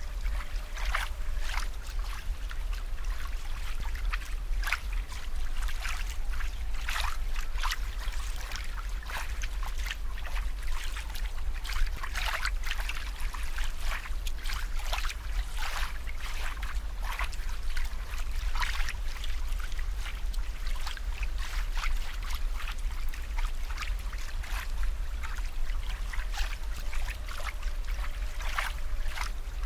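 Water trickling and bubbling, an irregular run of small splashy gurgles over a steady low hum.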